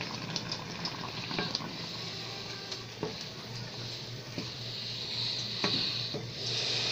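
Rice simmering in a pot of oil and water, with a steady sizzling hiss that grows louder near the end as the last of the liquid cooks off. A wooden spoon stirs it, with a few light knocks against the pot.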